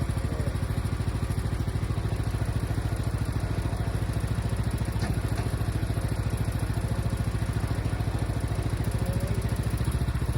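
Gas engine of a TMG band sawmill running steadily with an even, rapid low putter.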